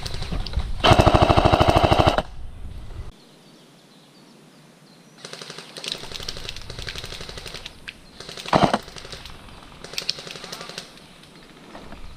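An A&K PKM airsoft electric machine gun firing a rapid full-auto burst of about a second, the loudest sound here. Fainter strings of rapid airsoft fire follow around six and ten seconds in, with one short sharp knock between them.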